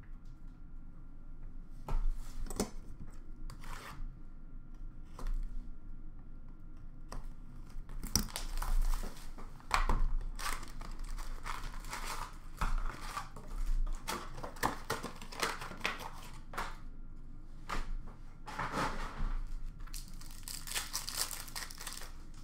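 Plastic and foil trading-card wrappers crinkling and tearing as a fresh box of hockey card packs is opened, with a few handling clicks first and then bursts of crinkling from about eight seconds in.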